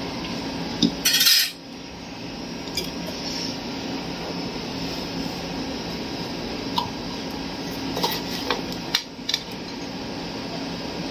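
Stainless steel utensils being handled: a short, loud scrape about a second in, then scattered clinks of a steel glass and bowls against a large steel bowl of cut raw mango pieces. A steady low hum runs underneath.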